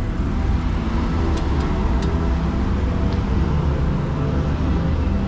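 Street traffic: cars running and passing with a steady low rumble, with a few faint clicks about a second or two in.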